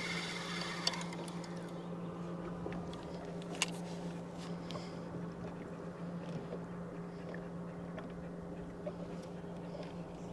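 Steady low hum of a bow-mounted electric trolling motor holding the boat in place, with two sharp clicks, about a second in and again a few seconds later.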